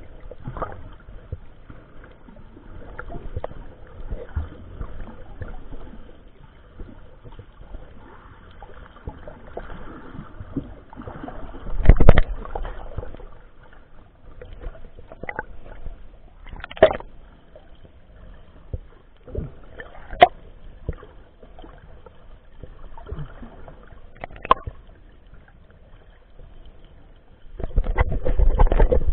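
Muffled underwater noise picked up through an action camera's waterproof housing as a snorkeler moves through the water. It is broken by scattered sharp clicks and knocks, with a loud surge about twelve seconds in and a longer rush of water noise near the end as the swimmer's arm strokes past the camera.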